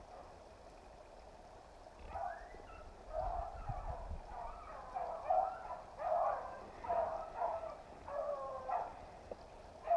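Rabbit-hunting hounds baying as they run a rabbit's trail, a string of yelping calls about one to two a second that starts about two seconds in.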